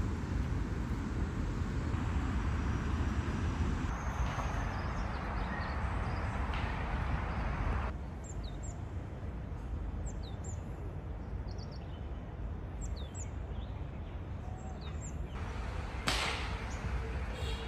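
Outdoor ambience: a steady low rumble, with short, high bird chirps scattered through the middle few seconds. The background changes abruptly a few times.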